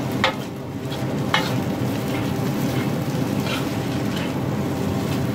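Egg fried rice sizzling in a wok while a metal wok ladle stirs and scrapes it, with a few sharp scrapes of the ladle against the pan, over a steady low hum.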